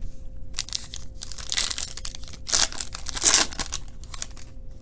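A foil trading-card pack wrapper being torn open and crinkled, in several rustling bursts, the loudest about halfway through.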